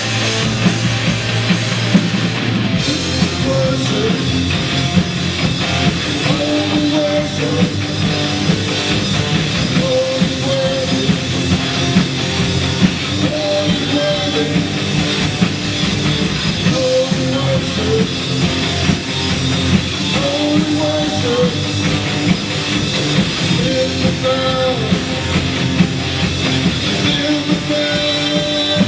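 Rock music: a full band with electric guitar and drum kit, and singing, playing continuously.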